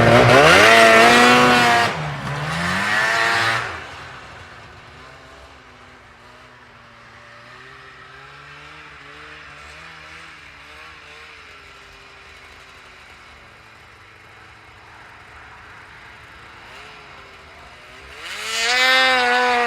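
Yamaha Phazer snowmobile engine revving hard as it passes close, loud with swooping pitch twice in the first few seconds. It then runs much quieter in the distance with slight pitch changes, and comes loud again near the end as it makes another close pass.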